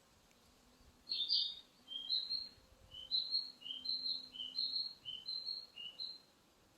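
A bird singing a short, high two-note phrase, repeated about seven times in quick succession, starting about a second in and stopping about a second before the end.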